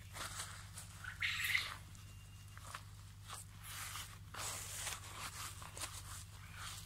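Gloved hand pressing and working loose potting soil mixed with coco peat around a plant, giving irregular crunching and rustling that is loudest about a second and a half in. A steady low hum runs underneath.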